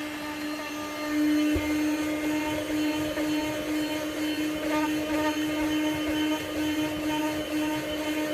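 Reserwa 12V handheld car vacuum running steadily: a motor hum at one pitch with a rush of air, getting louder about a second in as it works at spilled flour. A single knock comes shortly after.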